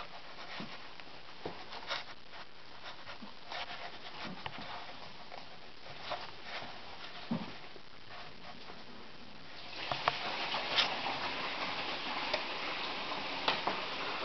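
Handling noise: scattered light clicks, knocks and rustling, growing into a louder hiss with more clicks about ten seconds in. No engine is running.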